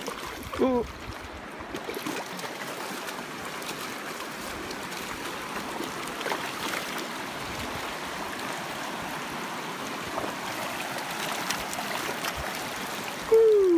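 Steady rush of flowing river water. A short voice sound breaks in about a second in, and a louder voice sound with falling pitch comes near the end.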